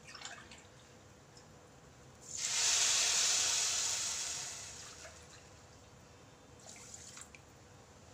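Water poured onto granulated sugar in a kadai to make sugar syrup. The pour starts about two seconds in and trails off over a couple of seconds, then comes again briefly near the end.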